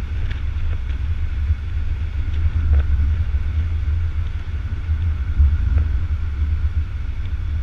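Steady low rumble of a car driving along, picked up by a camera mounted at its side window: wind and road noise, with a few faint ticks.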